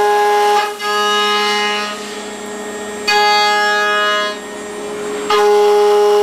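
CNC router spindle with an end mill cutting aluminum plate: a steady high-pitched machining whine with overtones. It is louder while the cutter is in the metal and drops back twice, at about two seconds and again past four seconds.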